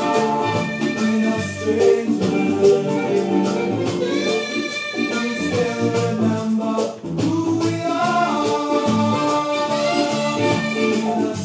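Roots reggae music playing from a 7-inch vinyl single on a turntable.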